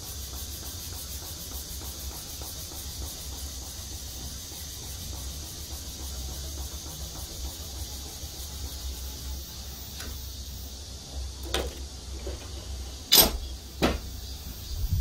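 Steady low hum with a faint hiss. In the last few seconds come a few sharp clicks and knocks, the loudest about thirteen seconds in, from a small steel knife being handled.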